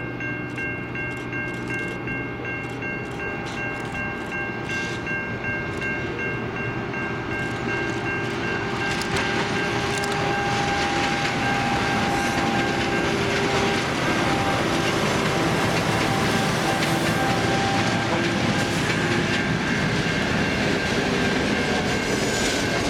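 Four diesel locomotives running light approach and pass close by; their engines and rail noise grow steadily louder over the first half and stay loud as they go past. A locomotive horn chord is held through the approach and fades out about eight seconds in.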